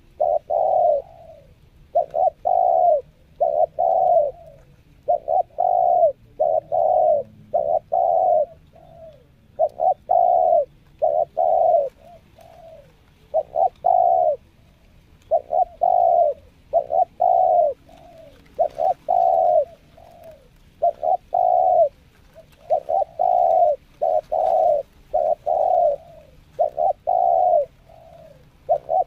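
Spotted dove cooing over and over: phrases of two or three loud coos, each ending in a softer trailing note, repeating every three to four seconds with short pauses between.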